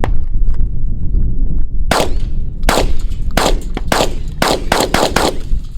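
Rapid gunfire: about ten shots in quick succession over roughly three and a half seconds, starting about two seconds in, over a steady low rumble of wind on the microphone.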